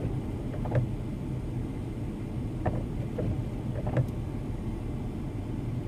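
Steady low rumble inside a stationary vehicle's cabin with the engine idling, broken by a few faint knocks.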